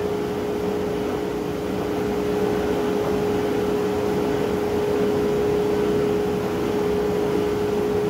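Steady mechanical hum with a constant pitched tone from a motor or fan running without a break.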